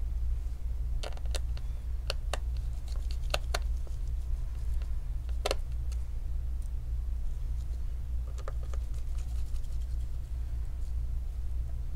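Scattered small clicks and taps of a screwdriver and gloved fingers handling parts inside an opened all-in-one PC, the sharpest about five seconds in, over a steady low hum.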